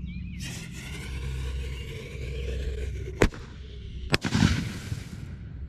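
Reloadable firework shell set off inside a DR9 mortar tube to test how the tube holds up to a shell bursting inside it. A hiss runs for about three seconds, then comes a sharp bang. A second bang follows about a second later, with a brief rush of noise after it.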